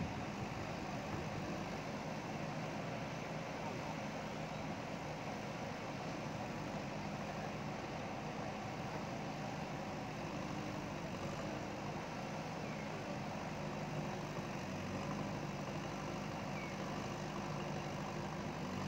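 JCB backhoe loader's diesel engine running at a steady speed, with no revving or knocks standing out.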